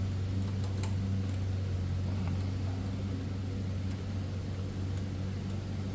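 Lawn mower engine running steadily, with a couple of faint clicks.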